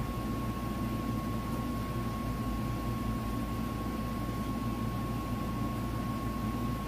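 Steady background hum and hiss with a constant thin high tone, unchanging throughout: workshop room tone.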